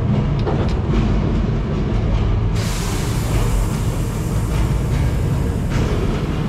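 Tour tram rolling with a low rumble under music. About two and a half seconds in, a loud steady hiss starts and lasts about three seconds.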